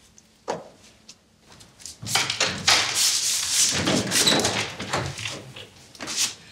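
A wooden apartment door being opened and pulled shut by its handle, with clicks of the handle and latch.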